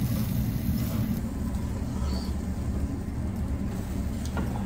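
Steady low rumble of ventilation at a charcoal tabletop yakiniku grill, its extraction fan drawing air and smoke down through the slotted rim of the roaster.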